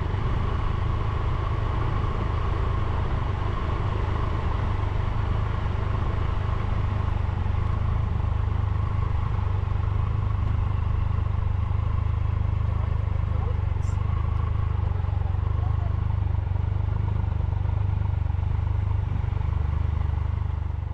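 Triumph Tiger 1200's three-cylinder engine running steadily at low town speed, heard from the rider's seat as a steady low rumble.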